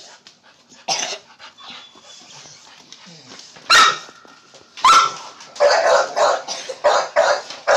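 Dog barking: single barks about a second in and twice more a few seconds later, then a quick run of about five barks near the end.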